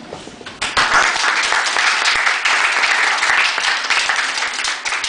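A small audience clapping, the applause starting about half a second in.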